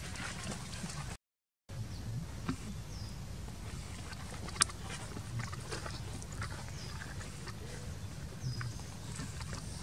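Macaques feeding and grooming at close range: scattered small clicks and rustles, with one sharper click about halfway through and a few faint short high chirps, over a steady low hum. The sound cuts out completely for about half a second a little over a second in.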